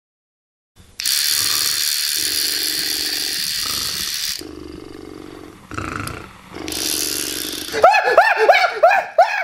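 Remote-control toy beetle buzzing with a rattling whir, in two spells with a quieter stretch between. Near the end comes a fast run of short, high, rising-and-falling cries.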